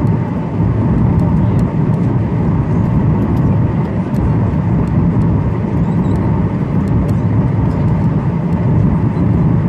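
Steady cabin noise inside a Boeing 737-900 in flight on approach: a low rumble of airflow and its CFM56 turbofan engines, with a faint steady hum.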